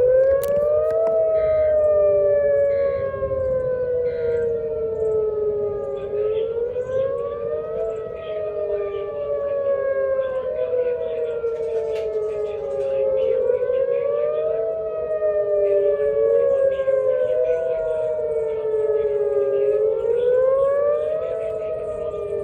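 Outdoor warning sirens sounding for a severe thunderstorm warning. More than one siren wails out of step, each tone rising quickly over about a second and falling slowly over the next four or five, and repeating every six seconds or so.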